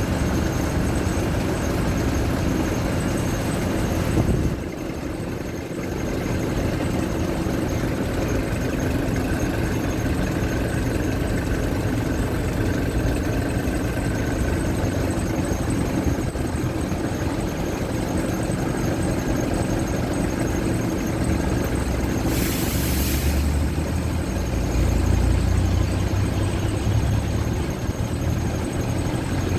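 Mercedes-Benz OF-1722M bus's diesel engine running under way, heard from inside the bus. Its sound drops briefly about four seconds in; a brief hiss comes a little past the middle, then the engine runs louder and heavier for a few seconds.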